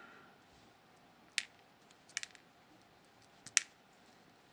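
A few short, sharp clicks of small metal lock parts, the pins and plug of a disassembled Miwa Kaba Star dimple lock, being handled. There is one click, then a close pair about a second later, then another about a second after that.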